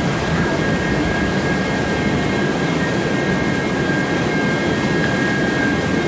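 Rapids-ride roller conveyor lift running under a round raft: a steady mechanical drone with a constant high whine through it.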